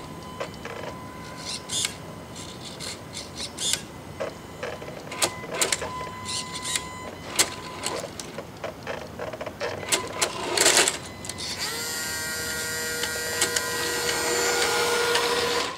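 Tamiya radio-control semi truck's electric motor and drivetrain whining as the truck creeps along, with scattered clicks and short rustles. In the last few seconds the whine turns steadier and louder, and it rises in pitch near the end.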